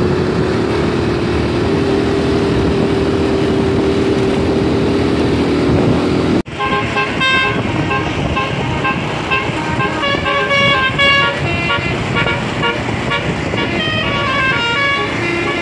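Indonesian tour bus's 'telolet Basuri' multi-tone musical horn over road and engine noise. For about six seconds a single long tone is held. Then the sound cuts off abruptly and the horn plays a quick tune of short notes that step up and down in pitch.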